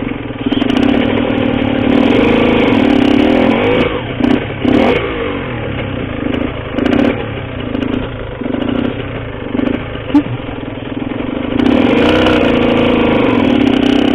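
Cagiva Mito 125's single-cylinder two-stroke engine through an Arrow exhaust, revving: held high for a few seconds at the start and again near the end, with short throttle blips in between. A single sharp crack stands out about ten seconds in.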